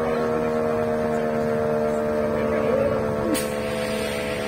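Fire-truck horns held together in one long, steady chord of several tones. A sharp click sounds a little over three seconds in.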